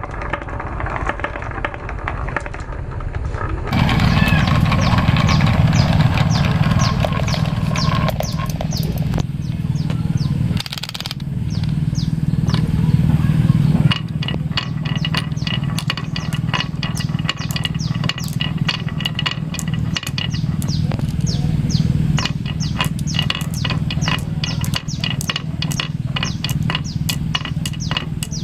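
Marbles rolling down wooden marble-run tracks: a steady low rumble with rapid clicking and clacking as they hit the track and each other. The sound changes abruptly a few times as the run moves to other sections.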